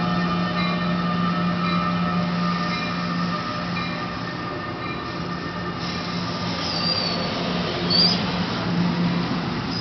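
New Jersey Transit Bombardier ALP-46 electric locomotive pulling away, with a steady electric hum of several held tones that fades over the first few seconds as it passes. Bombardier Multilevel coaches then roll by, with short high wheel squeals about seven and eight seconds in.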